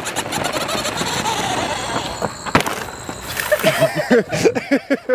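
Grave Digger RC monster truck driving over dirt: its electric motor whines and its tyres run over the gravel, with one sharp knock about two and a half seconds in. Voices are heard near the end.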